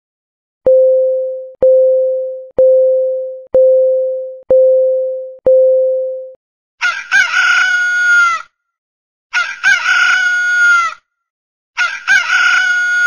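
Countdown timer beeping once a second, six low beeps that each start sharply and fade, counting down the last seconds. Then a rooster crows three times as the time's-up signal.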